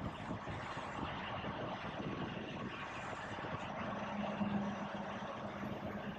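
Semi-truck tractor's diesel engine running steadily at low speed as the truck backs up slowly.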